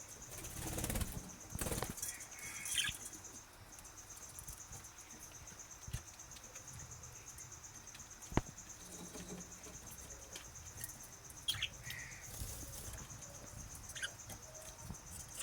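Budgerigars fluttering their wings in a burst about a second in, then scattered light clicks and a few short, high chirps.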